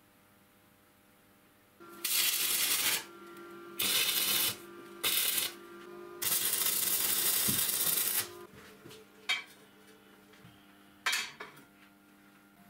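Stick (MMA) arc welding tack welds on square steel tubing: four bursts of arc, about a second, under a second, half a second, then about two seconds long. Two short clicks follow near the end.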